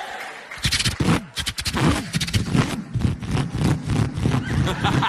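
A man imitating a V8 Holden Torana engine with his voice: rough, rapidly pulsing revving that rises and falls in pitch, starting about half a second in.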